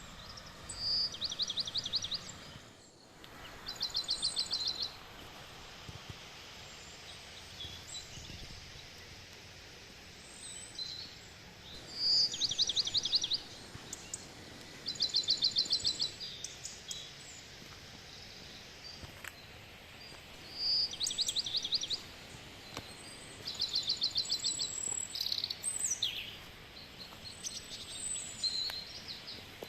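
A songbird singing a short song over and over: a brief high note followed by a rapid trill about a second long, given in pairs a few seconds apart. A few other short high bird calls come near the end, over a soft steady forest background hiss.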